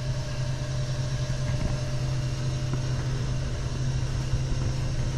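Gas-fired A.O. Smith Burkay copper-coil commercial water heater running, a steady low hum with an even rush of burner noise.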